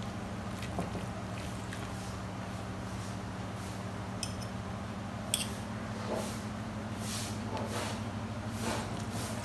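Eating sounds: a fork and spoon scraping and clicking against a plate, with one sharper click about five seconds in, and soft chewing noises. A steady low hum runs underneath.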